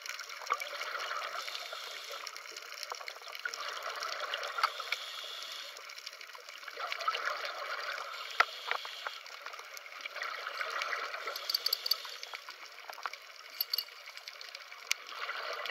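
Scuba diver's exhaled air bubbling up from the regulator in surges every three to four seconds, heard underwater, with scattered faint clicks and crackles in between.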